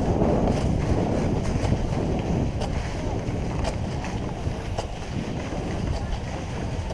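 Wind rushing over the camera's microphone with the hiss of skis sliding on granular snow during a downhill run, easing off gradually as the skier slows.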